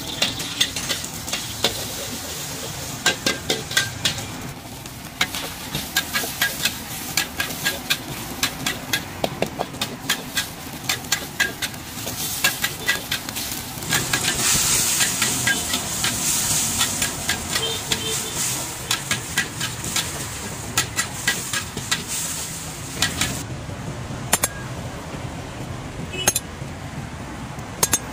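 Long metal spatula scraping and clanking against a wok in quick, irregular strokes while oil sizzles. The sizzle grows louder about halfway through, as cabbage and greens go into the hot wok.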